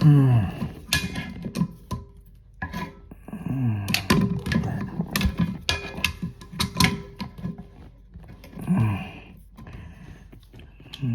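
Irregular clicks and knocks of tongue-and-groove pliers gripping and slipping on the plastic lock nut of a toilet fill valve, under the tank.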